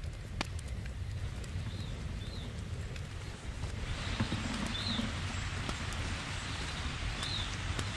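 Wind rumbling on the microphone, with a hiss that rises about halfway through as a gust picks up. A bird repeats a short high chirp every second or two.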